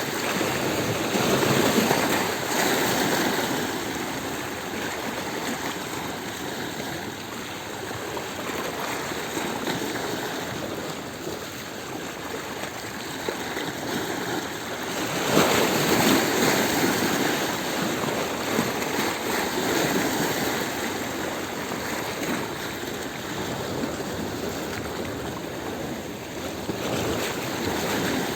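Sea waves breaking and washing over stones at the shoreline, a continuous rushing wash that swells louder twice: once near the start and once about halfway through.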